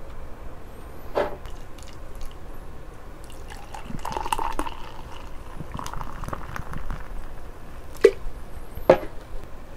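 Beer poured from a can into a glass mug in stretches, the liquid splashing into the glass as it fills. A few sharp knocks sound about a second in and twice near the end.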